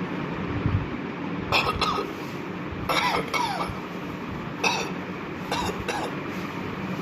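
A person coughing in four short bouts, most of them two coughs each, over steady background noise.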